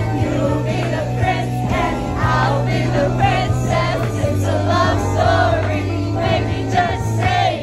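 A pop song with vocals playing loud over a dance-floor sound system, with several voices singing along.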